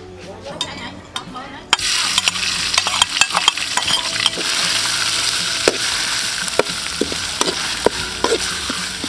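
Minced spice paste with chili dropped into hot soybean oil in a wok: it starts sizzling suddenly about two seconds in and keeps sizzling loudly. A metal spatula stirs it, clicking and scraping against the wok.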